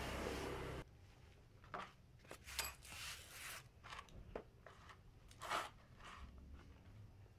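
A brush being worked in a basin of dark cleaning liquid: scattered small scrapes, clicks and splashes, the loudest about five and a half seconds in. A steady rushing noise cuts off within the first second.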